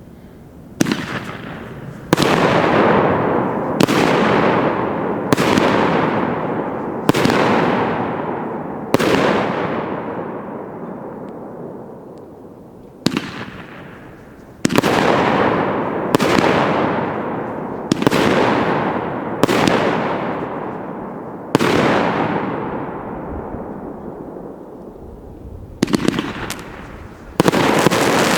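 A 500-gram firework cake with 1-inch tubes firing its shots one by one. Each shot is a sharp bang followed by a couple of seconds of fading sound as the glitter-trailed break burns out. There are about fourteen shots, with a pause of a few seconds near the middle and two quick ones close together near the end.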